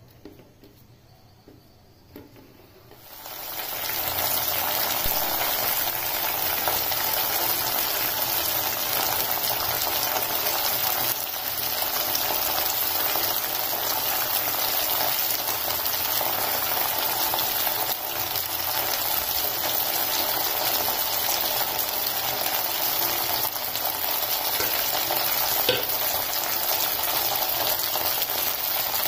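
Fenugreek leaves, green chillies and tomatoes sizzling as they fry in a hot pan. The sizzle starts about three seconds in and then runs steadily.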